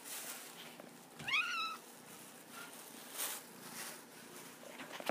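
Cat giving one short meow about a second in, rising in pitch and then holding briefly.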